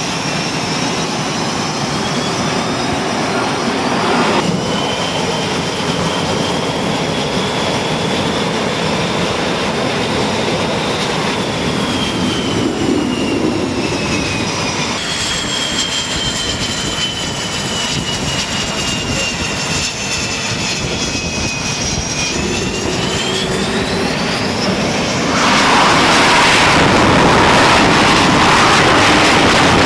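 F/A-18 Hornet jet engines running on a carrier flight deck: a steady jet noise with a high whine that slides up and down in pitch, changing abruptly a few times. Near the end the engines become louder and fuller as a jet sits hooked to the catapult.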